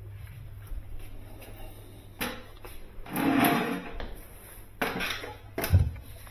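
A few knocks and clunks of objects being handled, the loudest a longer clatter about three seconds in, over a low steady hum.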